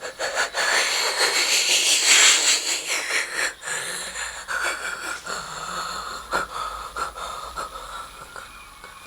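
Evil laughter sound effect: a breathy, wheezing laugh in quick bursts, loudest about two seconds in and fading gradually.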